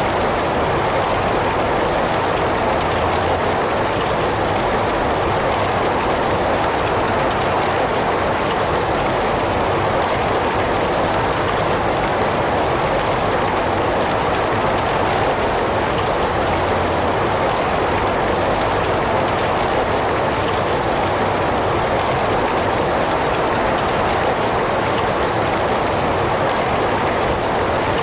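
Heavy rain falling steadily, a dense, even hiss of drops with no single drops standing out.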